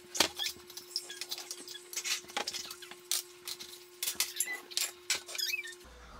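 Kitchen containers, bowls and measuring cups being set down on a countertop: a string of irregular knocks and clatters over a steady hum, which stops near the end.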